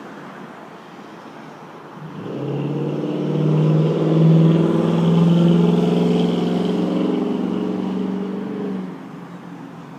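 An engine starts running loud about two seconds in, its pitch rising slightly and then holding steady, and stops about seven seconds later.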